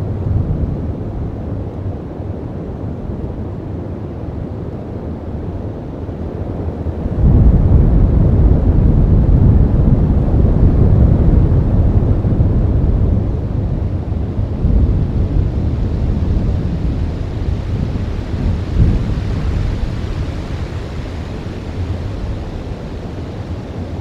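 Wind buffeting an outdoor microphone, heard as a low rumble. A gust sets in sharply about seven seconds in, holds strong for several seconds, then eases.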